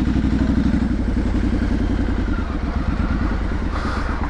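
Triumph Street Scrambler's 900 cc parallel-twin engine and exhaust running steadily under way, holding an even pitch.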